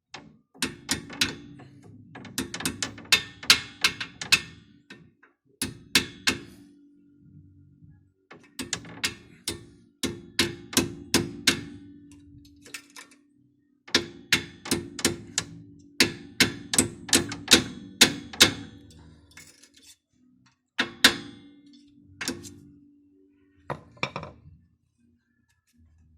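Hammer tapping on metal in quick runs of several strikes with short pauses, each run leaving a ringing tone. It is driving the brake pad retaining pin back into the rear brake caliper of a Vectra B, with a screwdriver used as a drift.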